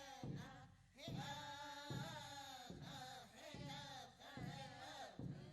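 Faint background music: a voice singing or chanting over a steady drum beat of a little more than one beat a second.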